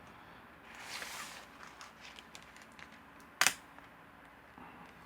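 Handling of a Blu-ray digipack and its discs: a soft brushing swish about a second in, then a single sharp click about three and a half seconds in.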